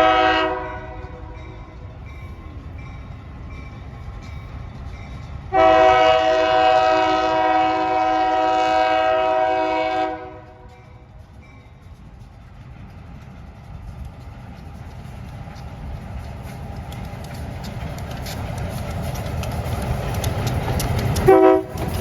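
Diesel locomotive air horn blowing for a grade crossing: a short blast at the start, then a long blast of about four seconds beginning about five seconds in. The rumble of the approaching train then grows steadily louder, with rhythmic wheel clicks over the rail joints, and a brief horn blast sounds near the end.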